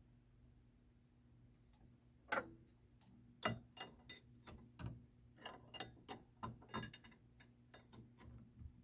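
Irregular metallic clicks and light knocks from a wrench working a hydraulic hose fitting, starting a couple of seconds in and coming about one or two a second.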